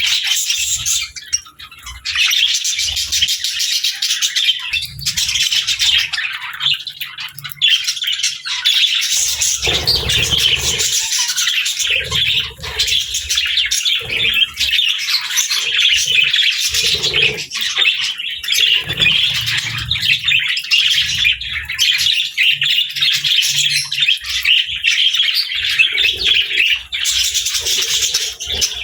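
Budgies and lovebirds chirping and chattering continuously, many quick high chirps overlapping with no break.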